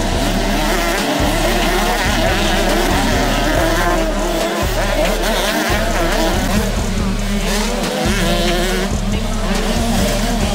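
Several 125cc two-stroke motocross bikes revving up and down as they race around a dirt track, their engine notes rising and falling, under background music with a steady, repeating bass line.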